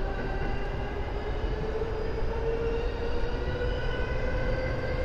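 An electric commuter train running and picking up speed: its traction motor whine, a set of tones, climbs slowly and steadily in pitch over a continuous rumble of wheels on the rails, heard from inside the train.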